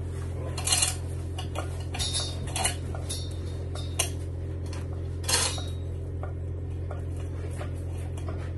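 Steel chain of a 1-ton manual chain hoist clinking and rattling as it is hauled by hand, with sharper metallic clinks about a second in and again around five seconds in, over a steady low hum.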